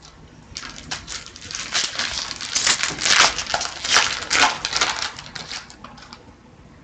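Plastic-foil wrapper of a hockey card pack crinkling and crackling in a dense run of rustles as it is torn open and the cards are pulled out, the busiest stretch near the middle.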